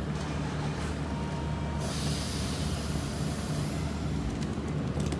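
Steady low engine hum of an idling vehicle.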